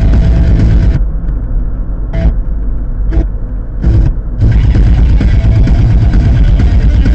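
Steady low road and engine rumble of a moving car, heard from inside the cabin through a dashcam's microphone. The higher hiss drops away from about a second in and returns after about four seconds.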